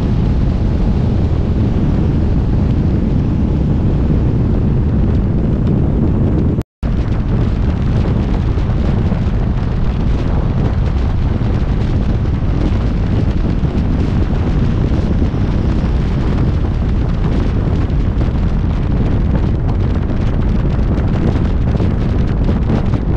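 Loud, steady low rumble of wind buffeting the microphone, with road traffic noise mixed in. The sound cuts out completely for a split second about a third of the way through.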